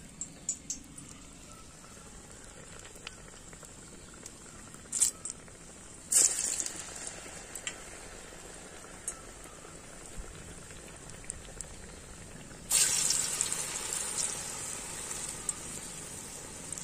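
Urad dal vada batter balls dropped into hot oil: a loud, sudden sizzle about six seconds in and another about thirteen seconds in, each settling into the bubbling of deep-frying.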